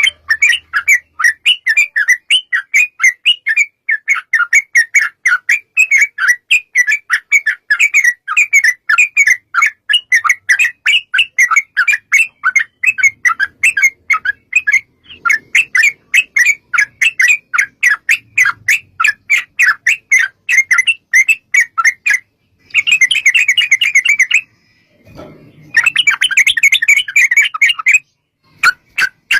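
Trucuk (yellow-vented bulbul) calling in a long, fast run of short chirping notes, about five a second for over twenty seconds, then two short bursts of denser chattering.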